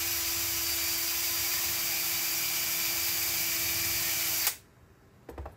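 DeWalt cordless drill spinning a brass wire brush against the brass head of an old 12-gauge shotgun shell to polish it. It runs at a steady speed with a steady hum, then stops suddenly about four and a half seconds in, followed by a couple of light clicks.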